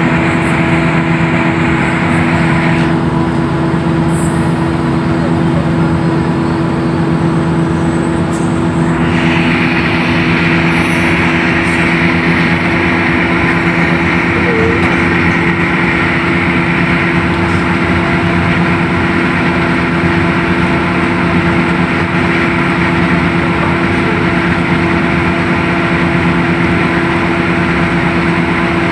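Hino AK8 coach cruising at a steady speed, heard from inside the cab: a steady diesel engine drone mixed with road and wind noise. The higher hiss drops for a few seconds near the start, then returns.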